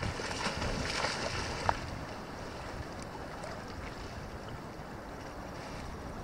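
Wind rumbling on the microphone, with water lapping at the surface around the camera. Crackling water noise in the first second and a half ends in one sharp click.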